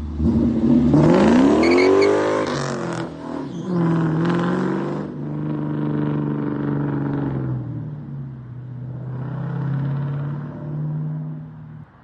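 2001 Ford Mustang GT's 4.6-litre V8 exhaling through a BBK off-road X-pipe: revved up hard and let fall back about a second in, blipped again, then running near idle with one more smaller rev before it cuts off suddenly near the end.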